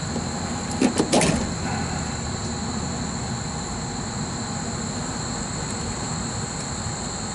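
Crickets chirring steadily in two high, even tones over a steady low rumble, with a few clicks about a second in.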